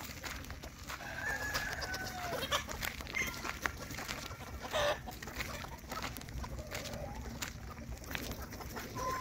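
A flock of native country chickens clucking and calling while foraging, with short calls scattered through and one longer held call about a second in, and a rooster crowing. Scattered short clicks run over a steady low background rumble.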